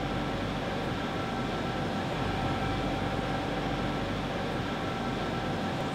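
Steady drone of factory machinery: an even rumble with a few steady high tones held above it.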